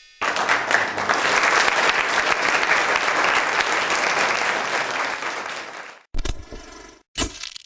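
Crowd applause for about six seconds that stops abruptly, followed by two short bursts of another sound near the end.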